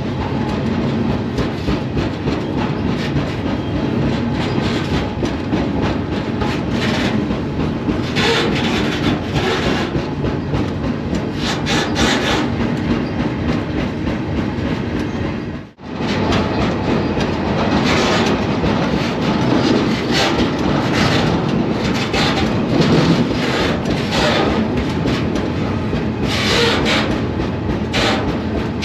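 Freight train rolling, heard from aboard a freight car: a steady rumble with irregular metallic rattling and clatter of the cars on the rails. The sound cuts out for a split second about halfway through.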